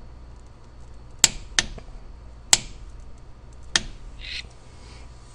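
Four sharp, separate clicks of tools or engine parts knocking together, then a brief scrape, over a steady low hum, while the timing chain and sprockets are being set in place.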